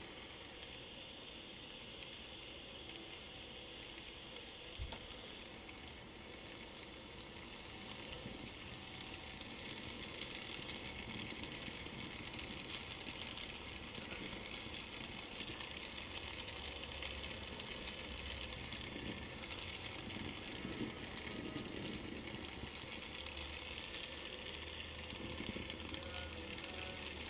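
Brazing torch flame burning steadily on a copper refrigerant line joint while it is heated and brazed. The sound grows a little louder about ten seconds in.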